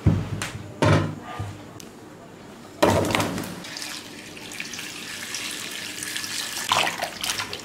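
Two sharp knocks, then water pouring and splashing for several seconds.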